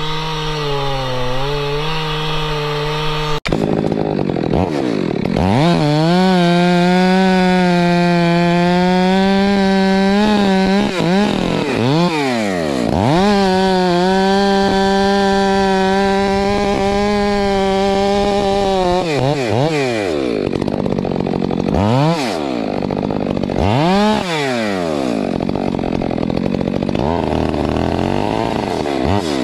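Stihl two-stroke chainsaw bucking oak logs: held at full throttle through long cuts, with the revs dropping and rising again between cuts and several quick throttle blips near the end.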